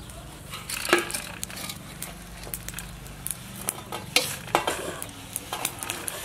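Steel ladle scraping and knocking against a large aluminium cooking pot as a whole cooked chicken is levered out of it, with several sharp metallic clinks, the loudest about a second in and around four seconds in.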